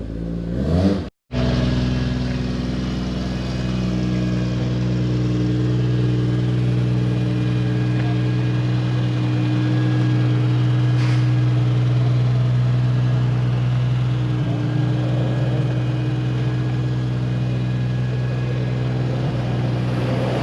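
Car engine idling steadily, an even, unchanging tone. There is a brief sudden dropout about a second in.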